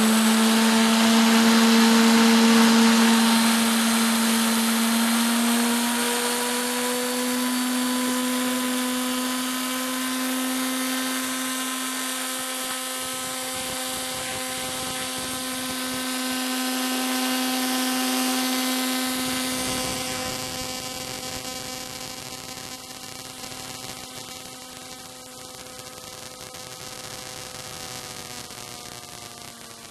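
Indesit washing machine series motor spinning unloaded at high speed, a steady whine made of several tones. It grows gradually quieter over the second half.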